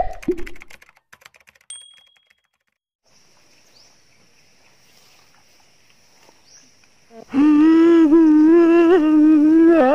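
A person's voice holds a long wailing note that wavers slightly, loud and sudden from about seven seconds in. It is a comic meme sound effect laid over the video. Before it come a few clicks at the tail of the intro effects, then a faint steady high whine.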